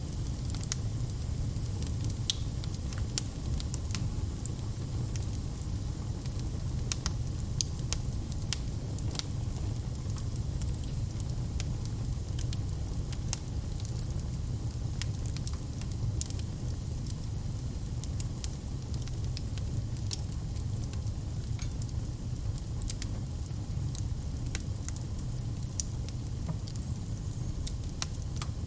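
Wood fire crackling and popping: a steady low rumble and hiss of burning, with sharp irregular snaps of burning wood throughout.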